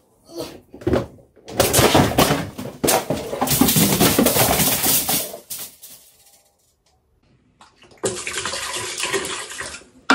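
A long clattering crash with many knocks, as a wheeled dolly carrying a plastic box runs into a metal drying rack and knocks it over. About two seconds after it dies away, a steady rushing hiss starts.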